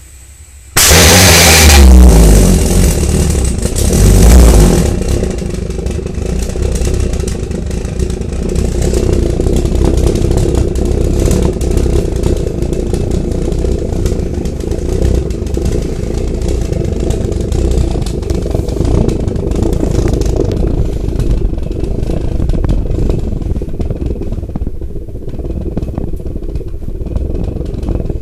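Jam jar jet: fuel vapour burning inside a glass jam jar, lighting with a sudden loud whoosh about a second in and surging again around four seconds. It then burns on as a steady rumble with a droning tone.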